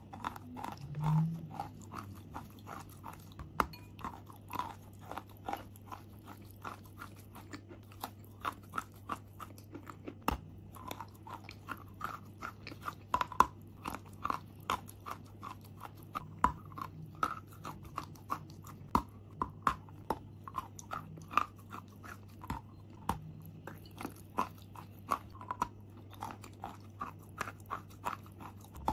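Close-up crunching and chewing of a lump of chalk: many crisp cracks and crumbles, several a second, as it is bitten and ground in the mouth, over a faint steady low hum.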